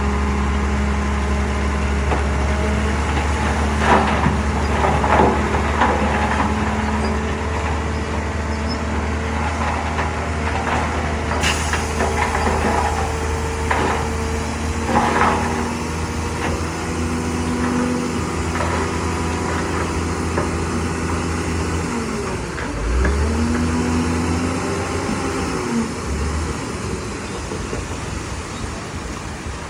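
Diesel engines of heavy earthmoving machinery running steadily, with a few sharp metallic clanks and knocks. The engine pitch shifts up and down about two-thirds of the way in.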